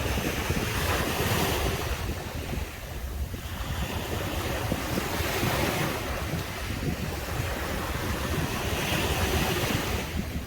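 Ocean waves breaking and washing up a beach, the wash swelling about every four seconds, with wind rumbling on the microphone.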